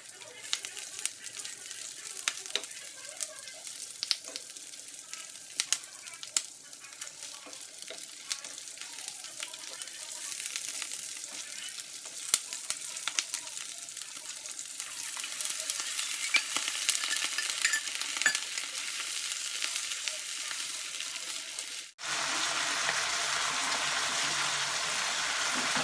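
Chicken pieces sizzling in a nonstick wok as they are stir-fried, with frequent sharp clicks and scrapes of the spatulas against the pan. After a sudden cut near the end, the sizzle turns louder and more even as the chicken cooks in its thickening sauce.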